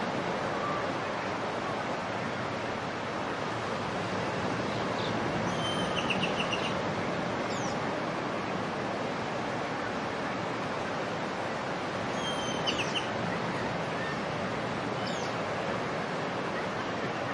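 Steady wash of surf on a beach with birds calling over it. Two short runs of quick chirps come about six and twelve seconds in, each followed a second or two later by a single call.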